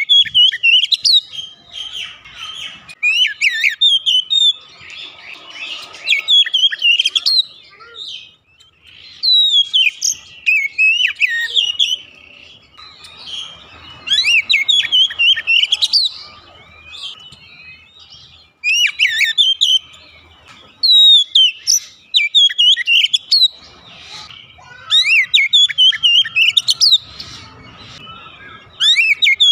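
Oriental magpie-robin (kacer) singing: a series of phrases of quick, varied whistled notes, each one to three seconds long, with short pauses between them.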